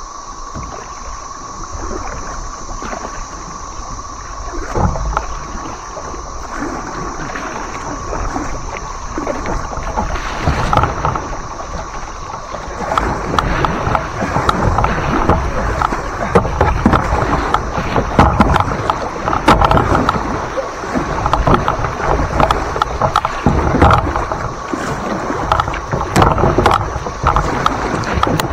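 Kayak paddling: paddle strokes and water splashing and sloshing around the hull, busier and louder from about halfway through.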